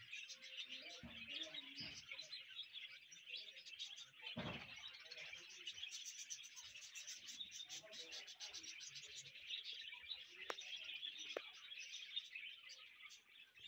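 A flock of caged budgerigars chattering and chirping continuously.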